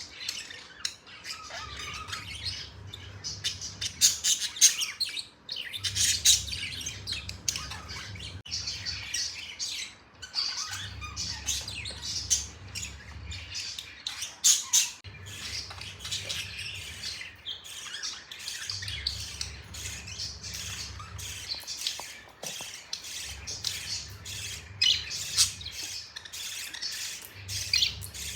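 A flock of budgerigars chattering, chirping and squawking continuously, with many overlapping calls.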